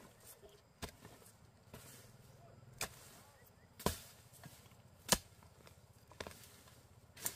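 A blade chopping, about six sharp strikes irregularly spaced roughly a second apart.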